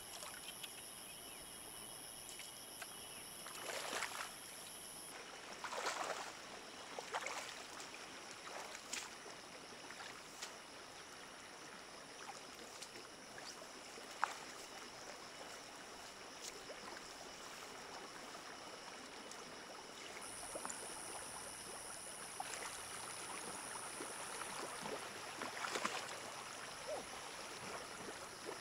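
Water sloshing and splashing in a few short bursts, over a steady faint high hiss.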